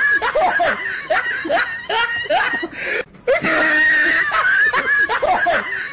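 Laughter sound effect: a stretch of loud laughing that loops, breaking off briefly about three seconds in and starting over the same way.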